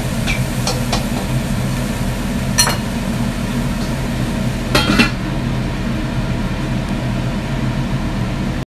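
Kitchen utensils clinking against dishes and a wok: a few light clinks at the start, then two louder ones, about two seconds apart, in the middle. Under them a steady hum from the lit gas stove runs on and cuts off suddenly near the end.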